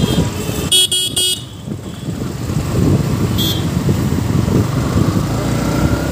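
Yamaha MT-15 motorcycle riding in city traffic: a steady low engine-and-wind rumble, with two quick horn beeps about a second in and a third, shorter and higher beep about halfway through.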